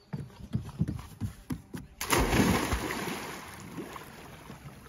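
A quick run of sharp thumps, then about two seconds in a person plunges into lake water with a big splash; the water churns and settles over the next few seconds.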